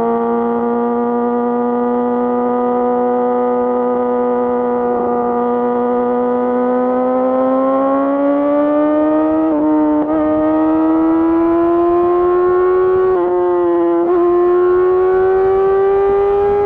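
2018 Yamaha YZF-R6's inline-four engine through an Akrapovic full exhaust, running at high revs under way. The note holds steady, climbs gradually from about halfway through, and dips briefly a few times.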